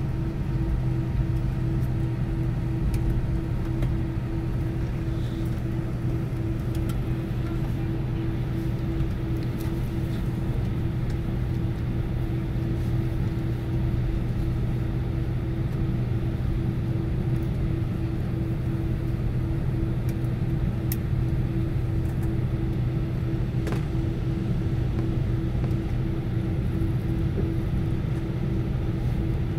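Cabin noise of an Airbus A319 taxiing, with its IAE V2500 engines running at low taxi power. A steady rumble carries two constant hum tones, one low and one higher, with a few faint ticks.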